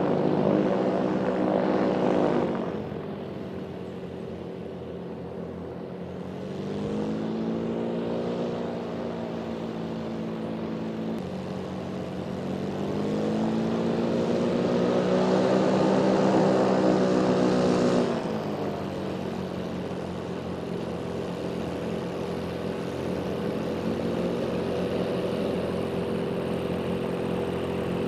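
MQ-1 Predator's turbocharged four-cylinder Rotax 914 engine driving its pusher propeller as the drone taxis. The engine note swells up in pitch and falls back three times, and drops abruptly in loudness twice.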